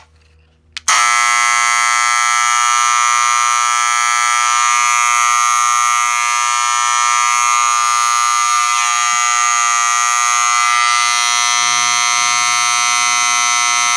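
Wheelock 31T 120-volt fire alarm horn sounding a loud, steady, unbroken tone: the alarm panel is in alarm. It comes on suddenly about a second in.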